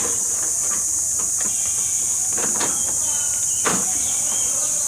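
A steady high-pitched insect chorus, with a few sharp clicks and knocks from parts of a window air conditioner being handled and fitted back in place.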